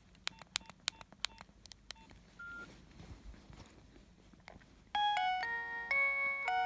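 Nokia 7250i mobile phone: about eight quick keypad presses, each a click with a short beep, then one short higher beep. About five seconds in, a loud preloaded ringtone starts from the phone's speaker, a melody of stepped synthesized notes with several sounding at once.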